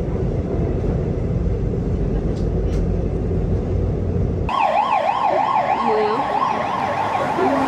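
Steady low rumble of a subway train in motion. About four and a half seconds in, it cuts to a siren warbling up and down about two or three times a second.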